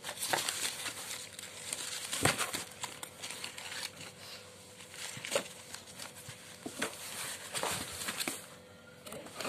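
A cat batting and biting a crumpled paper ball inside a cardboard box: irregular paper crinkling and rustling against the cardboard, with scattered knocks, the loudest about two seconds in.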